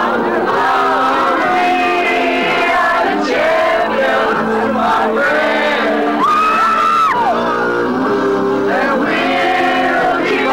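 A song playing, with a crowd of young people singing along and shouting.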